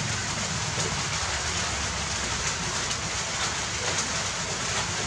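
Steady hiss of even background noise, with a few faint ticks.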